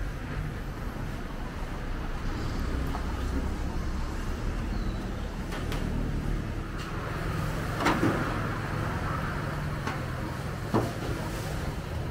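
Steady low rumble of passing road traffic, with two sharp metallic knocks, about eight and eleven seconds in, from pots and utensils being handled at the stall.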